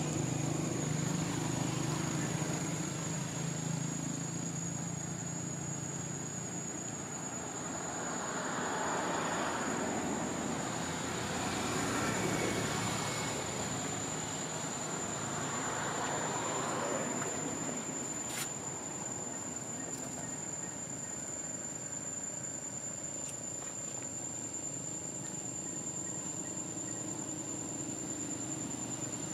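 Outdoor ambience: a steady high-pitched insect drone, with the low hum of a vehicle engine fading after the first few seconds and broad swells of passing-traffic noise in the middle.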